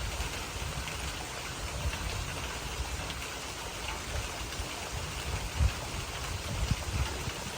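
Steady rain falling in the wind, with irregular low rumbling gusts of wind hitting the microphone and one louder gust about five and a half seconds in.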